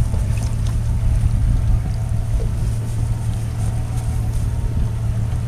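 Boat engine idling with a steady low hum, with wind and water noise over it.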